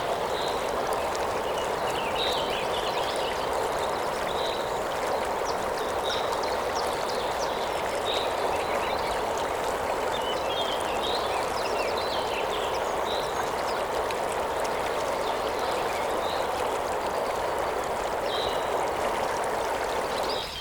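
River water flowing steadily, with a small bird chirping briefly every second or two above it.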